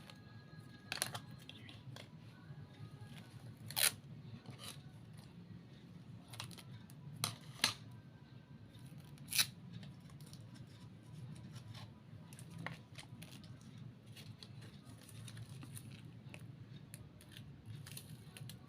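Hand crafting work on a model: a few sharp snips and clicks, like scissors cutting, with some tearing and handling noise over a steady low hum and faint music.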